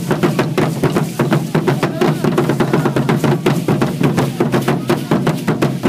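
Drumming for a danza azteca, a fast, even beat of about six strokes a second.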